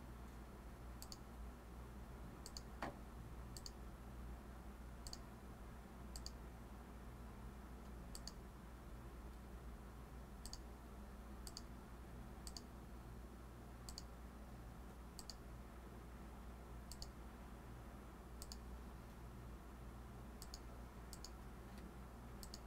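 Computer mouse clicking, short sharp clicks about once a second, each placing a point of a zone outline, over a faint steady low hum.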